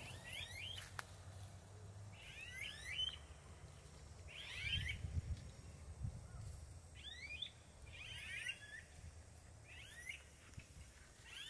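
Anus (ani cuckoos) calling repeatedly, a short call roughly every second and a half, over a low rumble.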